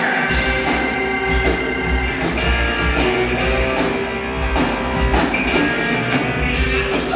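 A rock band playing live: electric guitar over a steady beat, with sustained chords.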